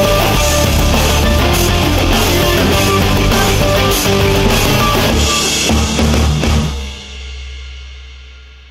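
Rock music with drums and guitar, ending about seven seconds in on a final chord that rings on and fades out.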